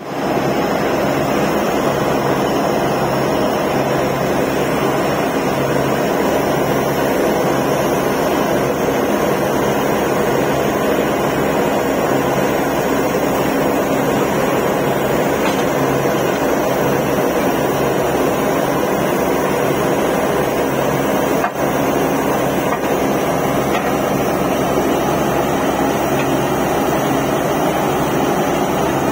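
Truck-mounted borewell drilling rig at work: its diesel engine and air compressor run with a loud, steady drone.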